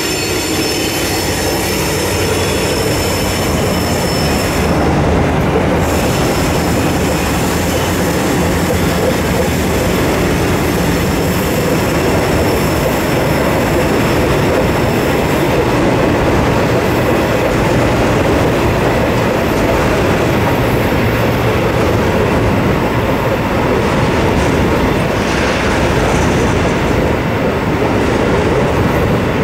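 Grain hopper wagons of a freight train rolling past on an elevated concrete bridge: a steady rumble of wheels on rail, with high wheel squeal in the first five seconds or so.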